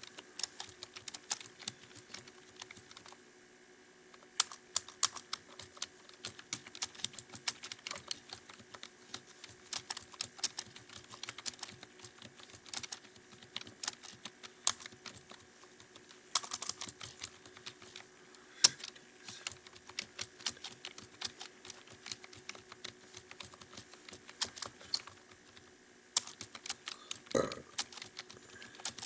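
Fast typing on a computer keyboard: irregular runs of keystroke clicks with a couple of brief pauses and one heavier knock near the end. A faint steady hum runs underneath.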